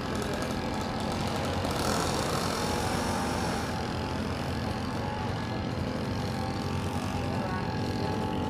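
Motor and propeller of a small foam remote-control airplane, driven by a motor from an Apex toy drone, giving a thin steady whine as it flies overhead. A dense low rumble of wind on the microphone lies under it.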